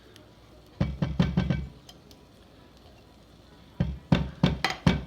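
A can of condensed cream of mushroom soup knocked repeatedly against the pan to shake out the thick soup that clings inside: a quick run of about four hollow knocks, a pause, then about five more.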